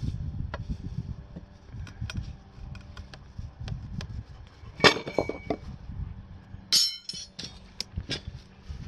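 Steel rebar and a metal bending pipe knocking and clinking as short lengths of rebar are bent over a wooden jig. A loud metallic clank with a brief ring comes about five seconds in, and another sharp clink a couple of seconds later.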